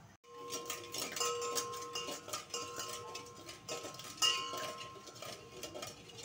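Metal spoon stirring sugar into water in a stainless steel pot, with repeated clinks and scrapes against the steel and the pot ringing steadily under them.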